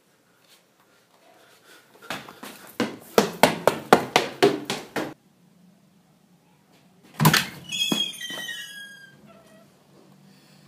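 A quick run of about nine sharp, loud thumps, then a door latch clicking and a wooden door's hinges creaking in a few short falling squeaks as the door swings open.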